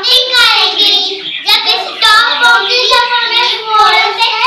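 Children singing in high voices, the pitch sliding and held on long notes with few breaks.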